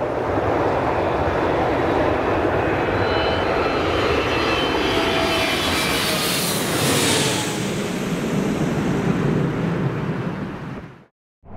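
Boeing 747-400 Freighter with four Rolls-Royce RB211-524 turbofans on final approach, passing low overhead: a steady jet roar with faint whining tones that slowly fall in pitch. It is loudest with a high hiss about two-thirds of the way through as the aircraft goes over, then fades and cuts off near the end.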